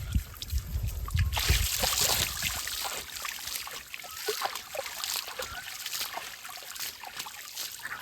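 Water splashing and trickling: a steady rush sets in about a second and a half in, full of small drips and splashes. It follows a few low thumps at the start.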